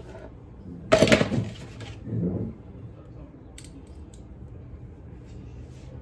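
Kitchen handling noise from cookware and utensils: a loud clatter about a second in, a shorter knock soon after, then a few faint light clicks.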